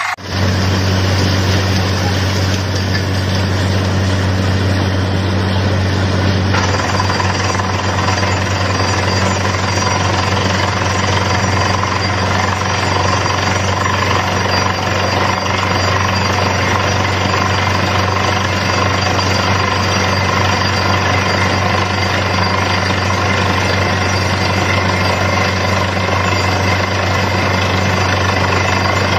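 Truck-mounted borewell drilling rig running while it drills: a loud, steady mechanical din over the low drone of the rig's engine.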